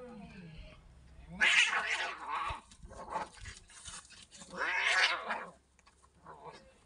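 Two domestic cats in a standoff: a drawn-out yowl at the start, then two loud, harsh screeching outbursts about three seconds apart.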